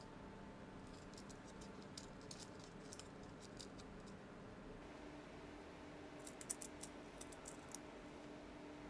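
Light handling clicks and taps from fingers on a squishy toy's cardboard tag and bead chain, in two short scattered runs with the loudest click a little past the middle, over faint steady room hiss.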